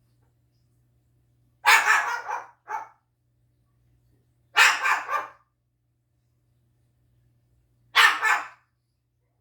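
Umbrella cockatoo mimicking a dog's bark: three barks a few seconds apart, the first followed by a short extra yap.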